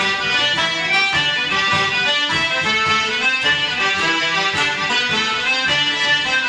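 Irish traditional music played by a small group: button accordions and concertina carry the tune over banjo, with bodhrán and cajón keeping a steady beat.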